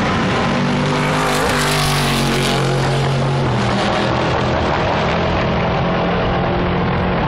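Several race car engines running hard around the circuit at once, their overlapping notes shifting and stepping down in pitch, with a louder, hissier stretch around two seconds in.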